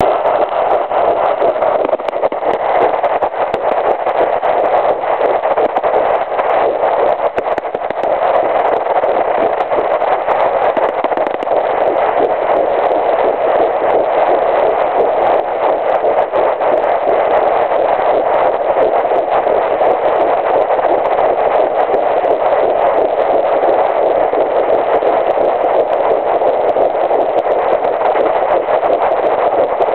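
Fetal doppler picking up an early pregnancy at 9 weeks: a steady rushing noise carrying the fast fetal heartbeat, about 168 beats a minute.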